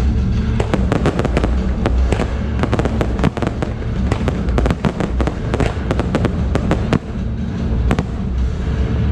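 Fireworks display: a rapid, irregular string of sharp bangs and crackles from aerial shells bursting and fountains firing, over a steady low rumble.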